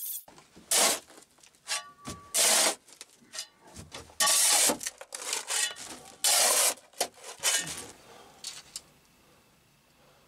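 Metal shovel scraping and scooping loose sand off a sandstone floor: four loud scrapes about two seconds apart, with smaller scrapes between them, dying away after about eight seconds.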